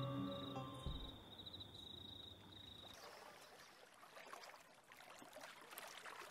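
Background music fading out over the first couple of seconds, leaving faint ambience of still lake water with soft lapping and a few light ticks.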